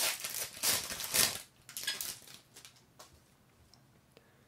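Foil wrapper of a trading card pack crinkling and tearing as it is pulled open by hand, in several bursts that stop about two seconds in.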